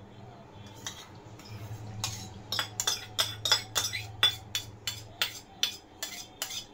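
Steel spoon clinking against stainless steel bowls while curd and water are stirred into ground sago. The clinks come in a quick run of about three a second, over a low steady hum.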